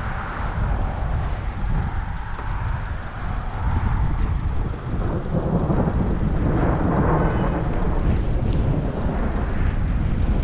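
Continuous low rumble of thunder from an approaching squall line, swelling louder about halfway through.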